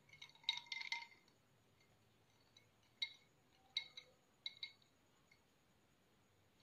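Faint clinks of a tall drinking glass as it is held and turned in the hand: a quick cluster in the first second, then a few single clinks.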